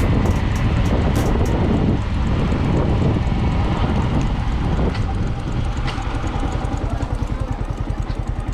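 Yamaha MT-15 V2 motorcycle's 155 cc single-cylinder engine running. In the second half it settles into a slow, even pulsing, like the bike easing off toward idle.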